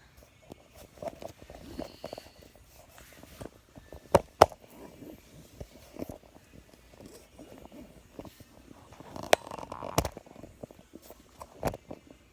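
Objects being handled and moved: scattered clicks, knocks and light rustling, with a few sharper knocks about four seconds in, around nine to ten seconds in, and near the end.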